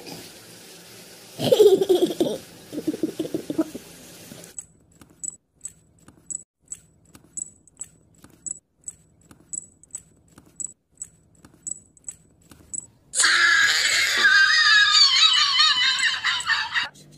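A loud laughing cry in short pulses, then a moving plush toy clicking steadily at about two to three clicks a second for several seconds, then a loud harsh noise near the end.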